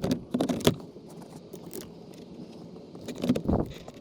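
Clicks and light clinks from the new AC blower motor being handled and fitted into its housing under the dashboard. A cluster of sharp clicks comes at the start, then a quieter stretch, then another few knocks a little after three seconds in.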